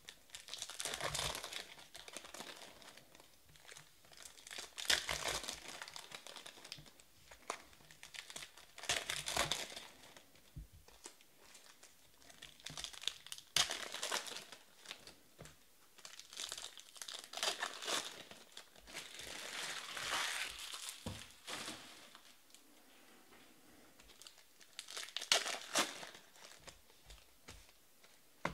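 Hands tearing open and crinkling the foil wrappers of 2017/18 Panini Status Basketball card packs, one after another, in bursts of crackling every few seconds.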